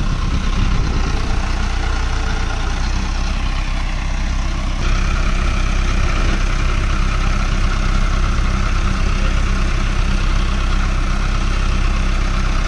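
Diesel tractor engine running steadily. About five seconds in it steps up in loudness and turns brighter in tone.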